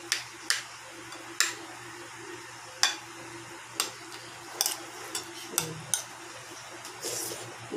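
Metal spoon and fork clinking and scraping against a ceramic plate and serving bowl during a meal: a dozen or so sharp, irregular clinks, some a second or more apart, a few in quick pairs. A faint steady hum runs underneath.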